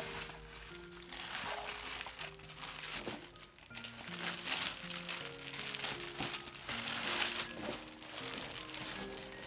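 Crinkling, rustling handling noise, loudest about four to five seconds in and again around seven seconds, over background music.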